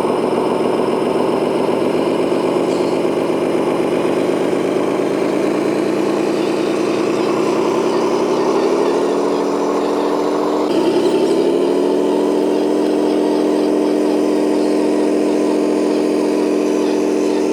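Radio-controlled construction model's motor running steadily with an engine-like drone; the pitch rises gradually partway through and steps up suddenly about eleven seconds in, then holds.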